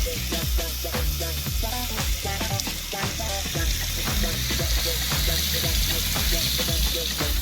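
Background music with a steady beat and a bass line, over a steady hiss.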